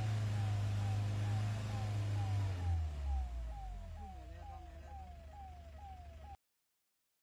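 Forest vehicle's engine running hard, the vehicle backing away from a charging wild elephant, while its reversing alarm sounds a short rising chirp over and over, about twice a second. The engine note drops lower about two and a half seconds in, and everything cuts off suddenly near the end.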